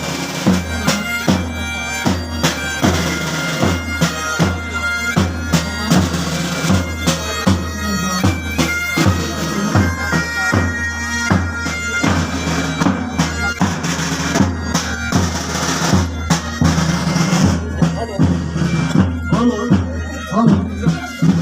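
Bagpipes playing a tune over a constant drone, with a steady drumbeat: a pipe-and-drum band.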